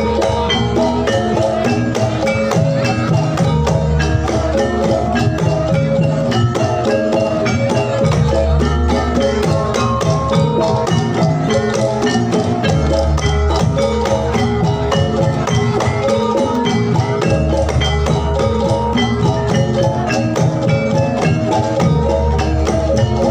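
Javanese gamelan music for jathilan played loud through a sound system. Metallophones ring out steady melodic notes over busy drum and percussion strokes, and a deep low note comes back every four to five seconds.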